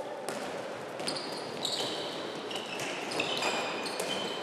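Handball being bounced and passed on a wooden sports-hall court, with players' shoes squeaking sharply on the floor several times and footfalls as they run.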